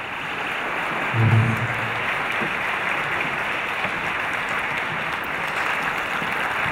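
Theatre audience applauding steadily, with a brief low voice rising above the clapping about a second in.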